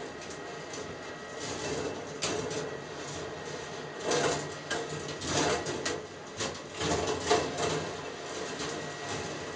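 Marbles rolling along the copper tracks of a rolling ball sculpture: a steady rolling rumble with scattered sharp clicks and clatters as balls hit switches and track joints, the loudest clack about seven seconds in.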